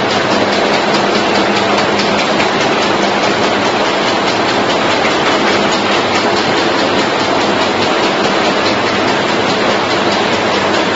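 Automatic chewing gum production line running: a loud, steady mechanical clatter of rapid fine ticks over a low hum, with no change throughout.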